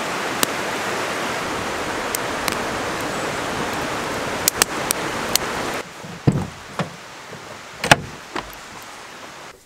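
Steady rush of a creek with sharp pops from a crackling wood campfire. About six seconds in the rush cuts off, and a few thumps follow, the loudest near the end, as someone steps up on a step stool and climbs in through a van's side door.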